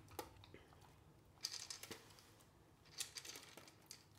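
Golden retriever puppy eating from a slow-feeder bowl: faint clicks and crunches of food against the bowl and chewing, in a few short clusters about a second apart.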